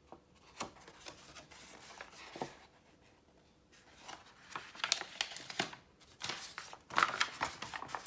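Sheets of hand-dyed paper being handled, rustling and crinkling in three spells with short pauses between.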